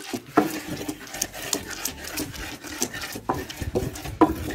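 Pestle grinding onion and garlic into a smooth paste in an earthenware grinding bowl: repeated irregular scraping and mashing strokes, with a few sharper knocks of the pestle against the clay.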